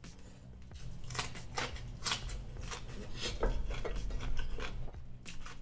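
Close-miked chewing of raw cucumber: a series of crisp, wet crunches, about two a second.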